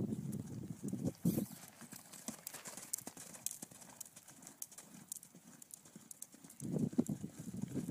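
Hoofbeats of a saddled horse moving at speed on the soft dirt of an arena, in clusters of dull thuds that are loudest in the first second and a half and again near the end.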